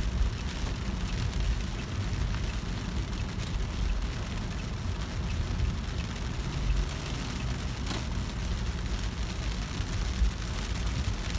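Car driving in rain, heard from inside the cabin: a steady low rumble of the road and engine under a hiss of rain on the car, with a few sharper ticks of drops striking the windshield.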